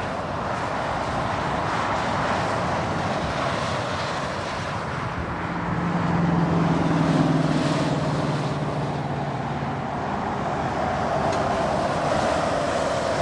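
Strong thunderstorm outflow wind blowing hard across the microphone, a continuous rushing noise. A low steady hum swells in the middle and then fades.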